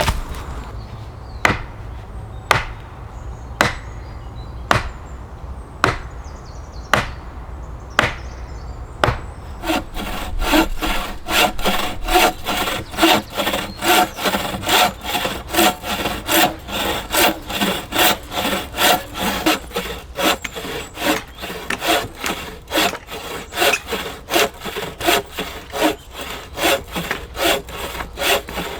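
Hand saw cutting through wood: slow, separate strokes about once a second, then from about ten seconds in a quicker, steady back-and-forth rhythm of about two to three strokes a second.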